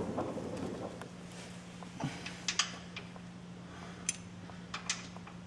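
A few light clicks and taps, as of hand tools being handled under a car, over a steady low hum.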